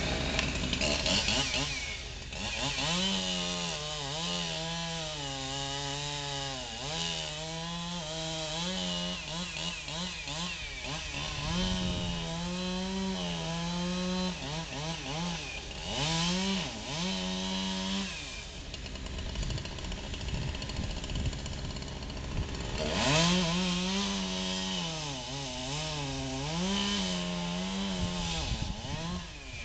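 Petrol chainsaw cutting a tree. The engine pitch repeatedly sags under load and climbs back, drops away for a few seconds in the middle, then revs up and cuts again.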